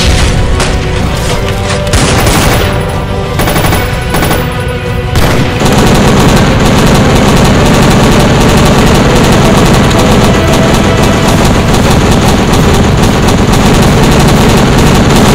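Automatic gunfire sound effects laid over background music, rapid firing from several guns. Choppy at first, the firing turns into a dense, unbroken barrage about five and a half seconds in.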